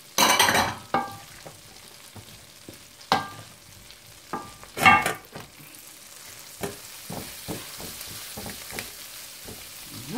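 Cooking utensils stirring vegetables and scraping and knocking against metal pans, with the loudest clanks briefly ringing about half a second in, near three seconds and near five seconds. Under the knocks, butter and chili peppers sizzle steadily as they fry in a second pan.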